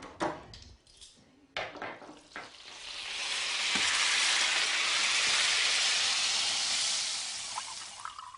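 A few kitchenware knocks and clicks, then food sizzling loudly in a hot pan. The sizzle swells a couple of seconds in and dies away near the end.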